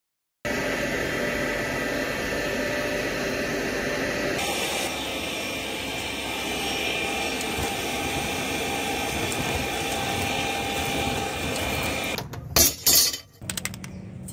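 Hot forged steel quenched in a can of oil: a steady sizzling hiss that runs for several seconds, its sound shifting about four seconds in. Near the end come a few sharp, loud knocks, then a quieter steady hum.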